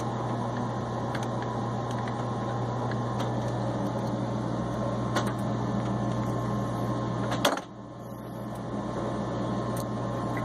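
Steady hum with a few sharp, light clicks of metal stove parts and screws being handled, the sharpest about seven and a half seconds in, where the hum briefly drops away.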